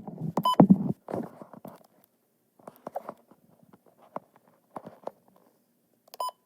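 Short electronic beeps at about 1 kHz from a device: one beep about half a second in, over a brief clatter. Faint scattered clicks and rustles follow, then a quick run of five or six beeps, about three a second, near the end.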